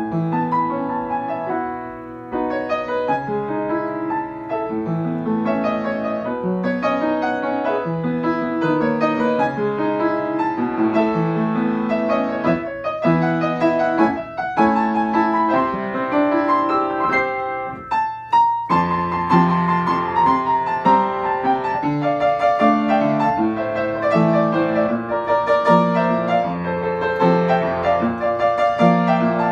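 Solo upright piano playing an original instrumental piece, with a bass line under a melody. The playing breaks off briefly about eighteen seconds in, then carries on.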